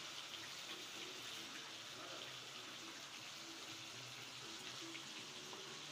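Marinated quail pieces deep-frying in hot oil in a kadai: a steady sizzle with small scattered crackles.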